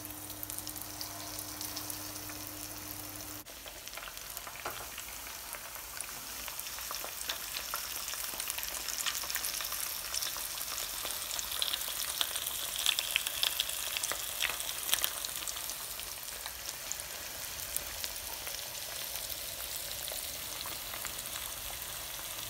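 Flour-coated fish pieces frying in hot oil in a wok: a steady sizzle full of fine crackles, growing busier toward the middle.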